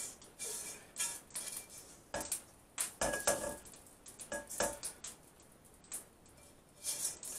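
Slotted spatula scraping and knocking fried rice out of a wok into a bowl: a run of irregular scrapes and taps of the utensil against the pan, some with a short metallic ring.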